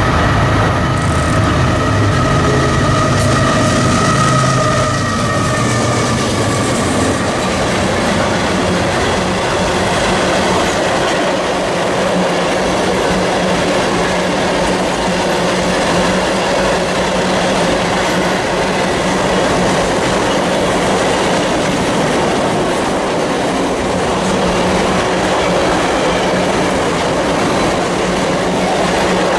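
Freight train diesel locomotives passing with a low engine rumble and some steady tones that fade after about six seconds, then a long string of loaded flatcars rolling by with steady wheel noise and clickety-clack over the rail joints.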